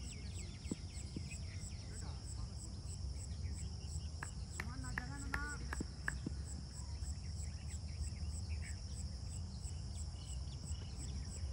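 Insects trilling steadily at a high pitch, with a pulsed chirp about three times a second over the trill. A low rumble of wind on the microphone lies underneath.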